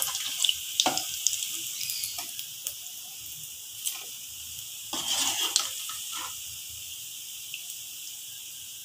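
Hot oil sizzling steadily in a karahi as palm-fruit fritters deep-fry, with scrapes and clinks of a metal slotted spoon against the pan and bowl in the first two seconds and again about five seconds in.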